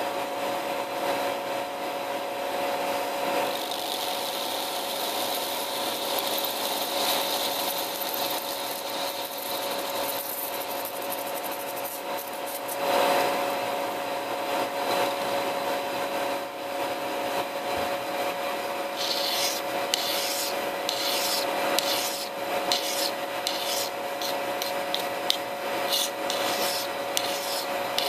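Lathe spindle running with a steady whine of several tones while the cutting tool faces the end of a metal blank, the cut hissing. About two-thirds of the way through, quick irregular rasping scrapes begin: a hand file worked against the spinning part.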